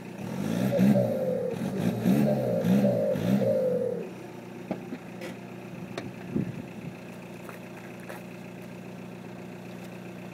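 Remapped Seat Ibiza Cupra TDI diesel with a Milltek full exhaust, revved in several short blips in quick succession, each followed by a falling turbo whistle as it spools down. About four seconds in it drops back to a steady idle.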